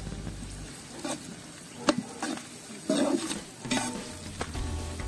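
Sliced onions sizzling in oil in a large aluminium pot while a metal ladle stirs them, scraping and knocking against the pot in several sharp clinks, the sharpest about two seconds in.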